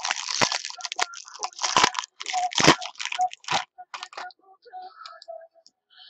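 Crinkling and crunching of card-pack wrapper and packaging being handled and torn open, with a few sharp knocks, busiest for the first three and a half seconds and then only light rustling.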